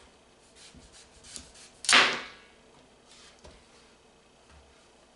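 Kitchen knife cutting through the top end of a butternut squash: one sharp, loud crack about two seconds in as the blade breaks through the hard squash and hits the cutting board, fading over about half a second, with a few faint knocks before and after.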